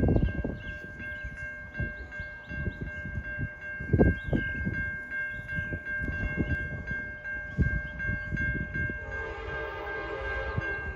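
Railroad grade-crossing bell ringing rapidly and steadily as the crossing gates lower for an approaching train, with scattered low thumps. About nine seconds in, a train horn sounds for about a second and a half.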